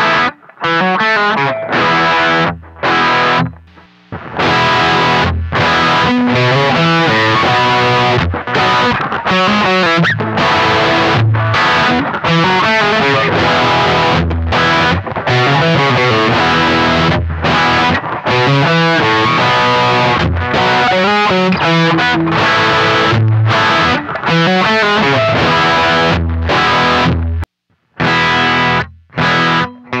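Electric guitar played with heavy high-gain distortion in a stop-start riff. For the first few seconds it goes through a Donner Dark Horizon distortion pedal on its modern high-gain setting. After a brief break about four seconds in, it goes through a Marshall DSL20H tube amp's Ultra Gain channel, and there is another short break near the end.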